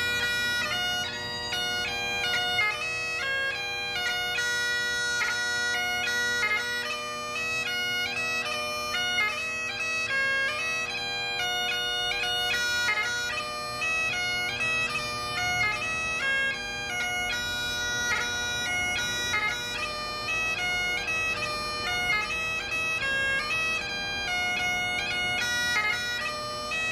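Background music: a bagpipe tune played over steady, unbroken drones.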